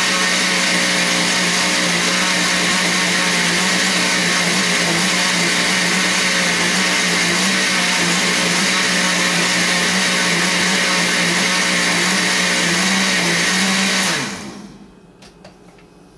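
Countertop blender running steadily, a second blending of a fruit, ice and wine smoothie that was not smooth enough the first time. About fourteen seconds in it is switched off and winds down, and a few light clicks follow.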